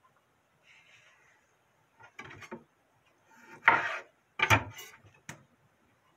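Several short scraping and knocking handling noises from close by, the loudest in the middle, ending in a single sharp click near the end.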